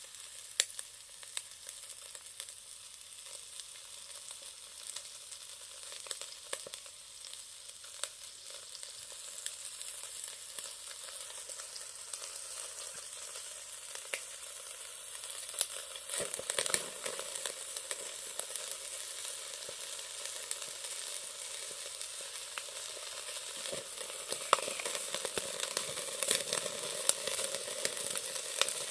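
Chicken thigh sizzling over charcoal on a shichirin grill, a steady hiss with scattered sharp pops of spitting fat, growing louder about halfway through.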